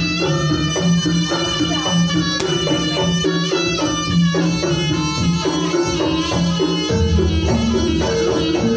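Live Javanese jaranan music: a slompret (Javanese reed shawm) playing a sustained, shifting melody over kendang drums and repeating low gamelan strokes, with the low pattern changing near the end.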